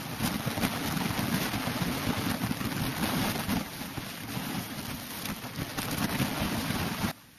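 Steady rush of water pouring down a canyon waterfall into a plunge pool, with wind rumbling on the microphone. The sound drops away sharply near the end.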